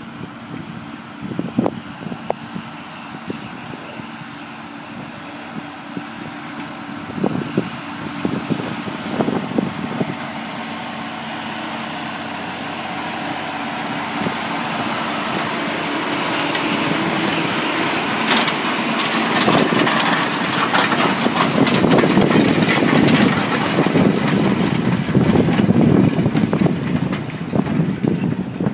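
John Deere tractor engine working in a field, with a few sharp knocks in the first third, growing steadily louder from about halfway as the tractor and its implement come close.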